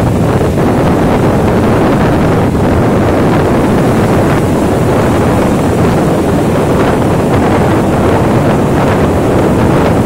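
Rough surf breaking and washing up a sandy beach, heard as a steady loud rush, with strong wind buffeting the microphone and adding a heavy low rumble.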